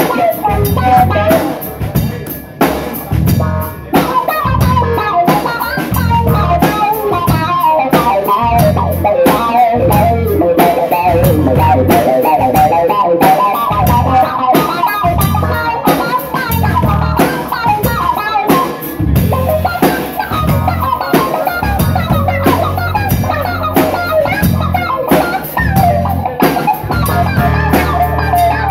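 Live band playing: a drum kit keeping a steady beat under guitar lines.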